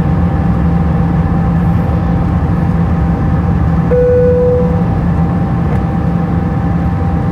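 Steady cabin noise of an Airbus A320 in flight: a constant low rumble with a steady hum. About four seconds in, a short, clear tone sounds for just under a second.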